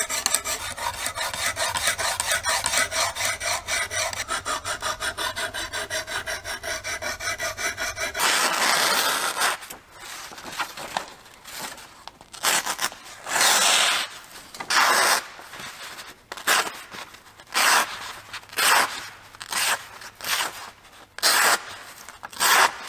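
A Lansky guided sharpening system's medium hone is stroked quickly along a Cattaraugus 225Q knife edge, a rhythmic rasping at about four strokes a second. About eight seconds in, it gives way to the freshly sharpened blade slicing through a sheet of paper, a run of short, crisp swishing cuts.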